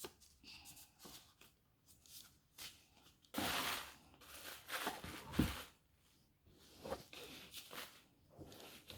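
Paper packaging rustling and crinkling in irregular handfuls as it is handled and pulled aside, loudest in a long stretch about three and a half seconds in and again around five seconds.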